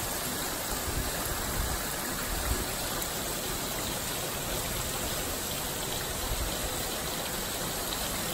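Steady heavy rain with gusting wind during a thunderstorm.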